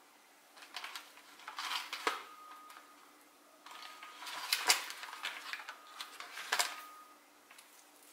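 Hand rustling through the fronds of a potted button fern in two spells, with three sharp clicks or knocks.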